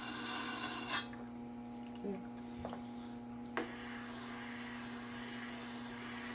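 Sharpening stone scraping along the edge of a German X50CrMoV15 steel Santoku clamped in a sharpening jig. The scraping stops with a click about a second in, followed by a few light clicks over a steady low hum.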